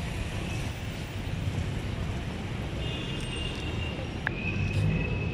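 City street traffic rumbling steadily, with wind buffeting the microphone. A thin, high, steady tone comes in about three seconds in and holds to the end.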